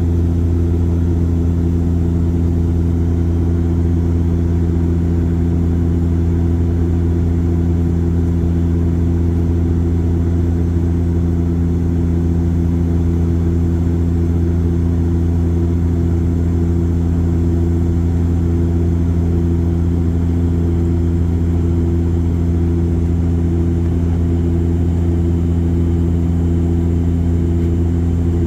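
Steady drone of an airliner's engines heard inside the cabin in flight: a loud low hum with several steady tones above it, unchanging throughout.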